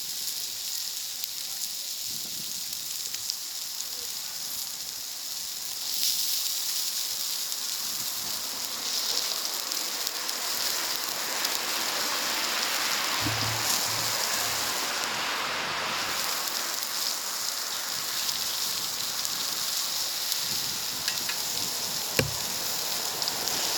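Food sizzling on a hot plancha over a wood fire: a steady hiss, with a few soft knocks in the middle and a sharp click near the end.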